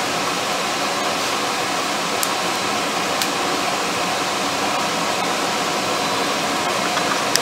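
Coal forge blower running: a steady rush of air through the fire pot as the corn fuel starts to catch, with a couple of faint ticks.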